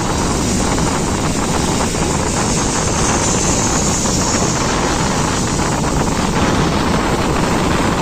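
Steady running noise of a moving passenger train heard from on board, with wind buffeting the microphone.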